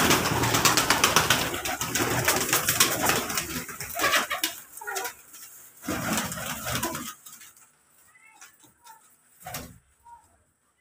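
Domestic pigeons in a small room: a loud rush of fluttering wings for the first few seconds, then a second shorter flurry, and quieter bird calls near the end.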